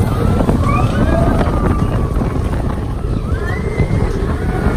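Slinky Dog Dash roller coaster train running along its steel track at speed, heard on board: a loud low rumble with wind buffeting the microphone, and a few short sliding squeals over it.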